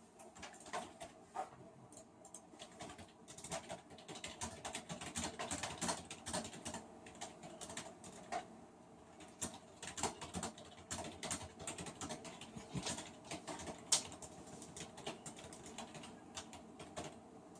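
Irregular light clicking and tapping, several to a second, over a faint steady hum from a ceiling fan motor.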